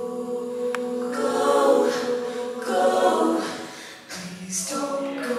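A cappella vocal group singing sustained chords in close harmony into microphones, with no instruments. The sound swells through one phrase, dips briefly about four seconds in, and comes back in on the next. A short click is heard a little under a second in.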